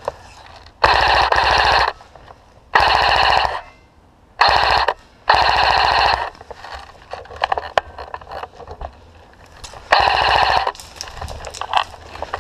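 Airsoft electric rifle firing long full-auto bursts, a rapid stream of shots: four bursts in the first six or so seconds, then a few scattered single shots, and one more burst about ten seconds in.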